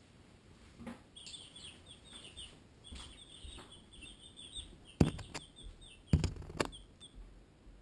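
Baby chicks (Barred Rock and Ameraucana) peeping, a quick run of short high chirps, each dipping in pitch, several a second. Two loud knocks close by, just over a second apart, about five and six seconds in, are the loudest sounds.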